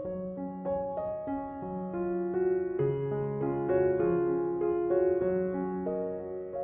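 Instrumental background music on piano: a slow melody of held notes over sustained lower notes.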